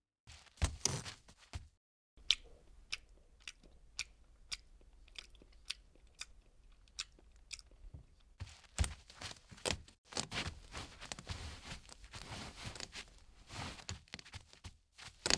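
Layered Foley for an animal: a run of light, sharp clicks about two a second, the animal's contact with the floor. From about eight seconds in come denser crunching and chewing sounds.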